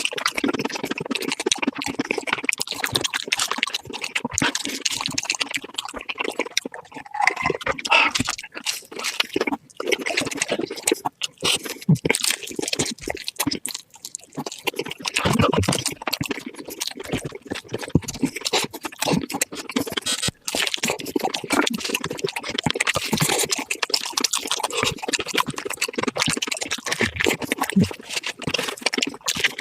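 Close-miked mukbang eating sounds played at four times speed: continuous rapid crunching, chewing and mouth clicks from eating crispy fried chicken.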